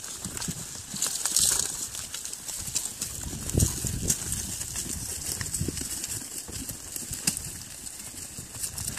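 A flock of sheep moving over dry leaf litter and twigs: a patter of many hooves with crackling and rustling.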